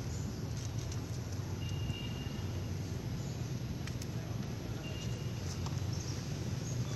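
Steady low outdoor rumble, with two brief, faint high-pitched squeaks about two and five seconds in, and a few light ticks.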